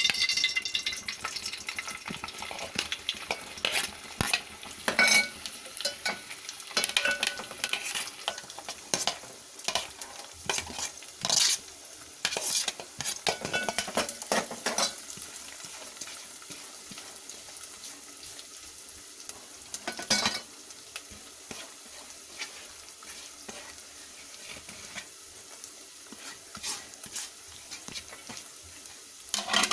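Dry fruits (cashews, almonds, pistachios) sizzling as they roast lightly in hot ghee, with a spoon stirring and scraping against the pan. The spoon clicks come often in the first half, then thin out to a few.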